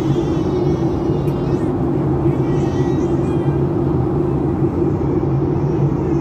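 Airliner cabin noise in flight: the steady drone of the jet engines and rushing air.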